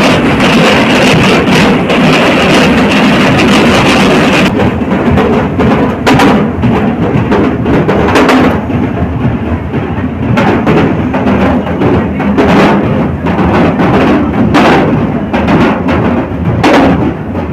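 Large bass drums slung from the shoulder and beaten with sticks, played loudly. A dense hiss covers the first few seconds, and then the separate drum strokes stand out.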